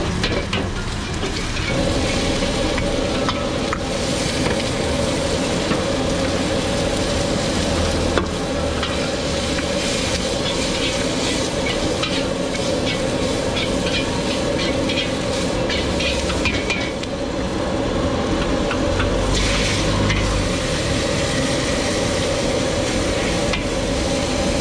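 Noodles and vegetables sizzling in a hot wok while being stir-fried. A metal ladle scrapes and taps against the wok in a quick run of strokes from about 9 to 17 seconds in, and the sizzle flares louder for a moment near 19 seconds.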